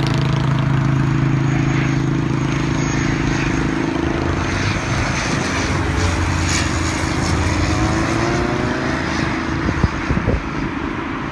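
An airliner flying low on landing approach: its engines make a steady drone of low hum tones under a broad rushing noise, with a few sharp knocks about ten seconds in.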